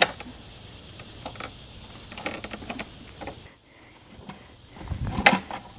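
Scattered clicks and knocks from a homemade Rubik's Cube ninja obstacle as it is climbed and spun, with a sharp click at the start and a low thump followed by a louder knock about five seconds in.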